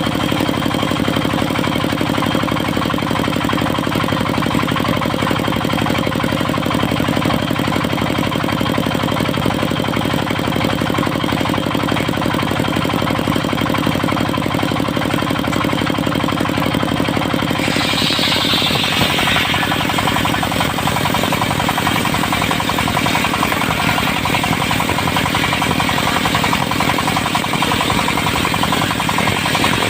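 Diesel engine of a mobile circular sawmill running steadily and driving the saw. About halfway through, a higher hissing sound joins in and the engine's lower tone eases.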